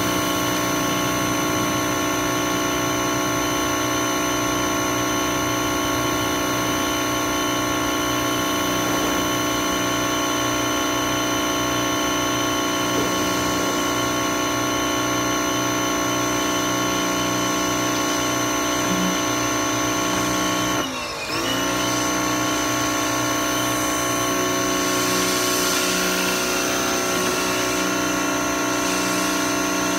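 Pressure washer running steadily with a constant motor-and-pump drone. About two-thirds of the way through its pitch and level dip for a moment, then it comes straight back up to speed.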